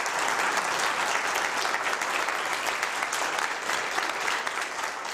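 Audience applauding, a dense patter of clapping that tapers off slightly near the end.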